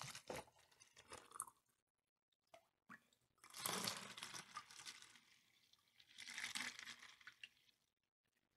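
Liquid poured from a plastic cup through a plastic funnel into a plastic water bottle, in two short spells about three and a half and six seconds in. Before them, a light crackle of the plastic bottle and funnel being handled.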